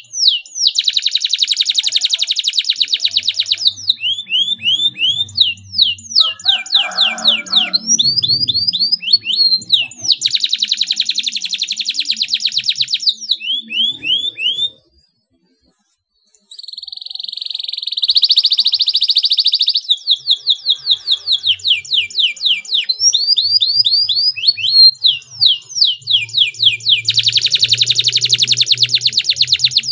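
Domestic canary singing a long song: series of quick downward-sweeping whistled notes alternating with tight, very fast trills (rolls). The song breaks off for about a second and a half midway, then resumes.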